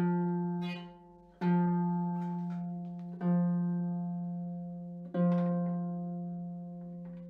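A lever harp's F string, the F below middle C, plucked four times, each note ringing on and fading, as it is tuned to pitch with the levers down.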